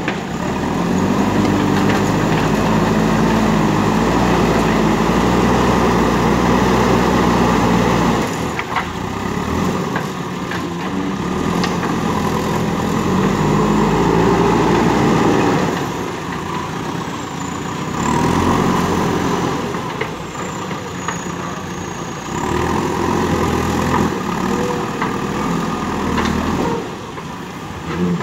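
JCB backhoe loader's diesel engine working under load as it scoops and carries earth in its front bucket. The engine revs up into long loud stretches, over the first eight seconds and again about halfway through, and drops back to a lower run in between and near the end.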